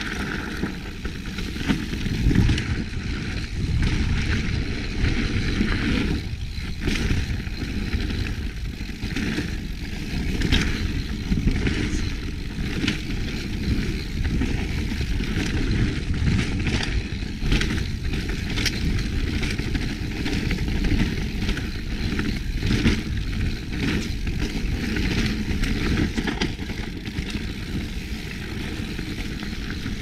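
Kona Process 153 29 full-suspension mountain bike ridden on a dirt trail: a steady rumble of tyres over the ground, broken by frequent short knocks and rattles from the bike over bumps.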